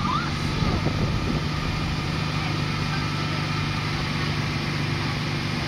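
Boat engine running steadily while the boat cruises along the river: a constant low hum, heard from on board.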